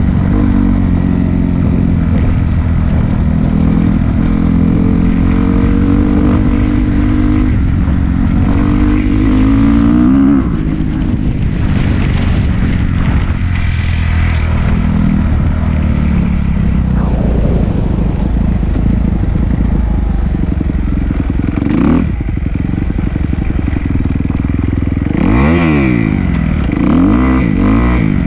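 Dirt bike engine running hard as it is ridden, its pitch climbing through the gears and dropping back at each shift. There is a sharp drop when the throttle is rolled off about ten seconds in, and a couple of quick revs rising and falling near the end.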